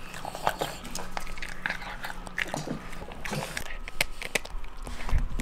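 A dog eating soft food from a metal bowl, then gnawing a chew stick: wet smacking and many short crunchy clicks of biting and chewing.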